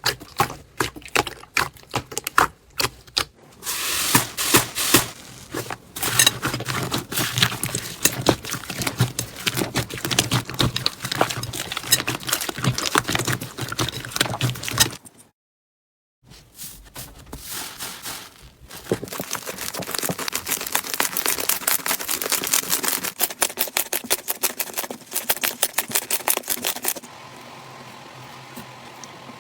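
Slime being squeezed, poked and pressed by hand: a dense run of sticky clicks and crackles. It cuts to silence for about a second halfway through, then carries on and thins out near the end.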